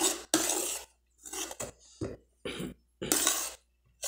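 A metal spoon scraping and tapping a plate of cuscuz and fried sausage, in a run of short scrapes with pauses between, along with close-up eating noises.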